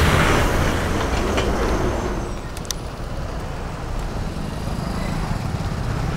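A bus passing close alongside, its engine rumble and rush loudest at the start and fading over about two seconds, then steady road traffic noise.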